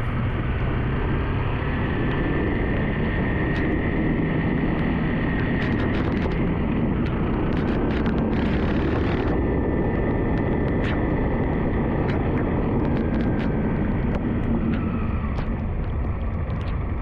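Yamaha WR155's single-cylinder engine running as the bike rolls along a rain-soaked road, under a steady rush of wet-road and riding noise. Many sharp ticks from raindrops hitting the camera come in from about five seconds on, with a short louder hiss about eight seconds in.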